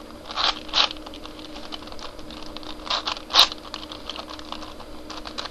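Eastsheen 4x4x4 puzzle cube being turned by hand: its plastic layers click and clack through a run of quick turns, with a few louder clacks, two near the start and two past the middle.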